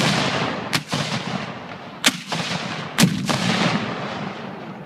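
Civil War-style muzzle-loading field cannons firing in turn: four sharp reports within about three seconds, each followed by a long rumbling echo.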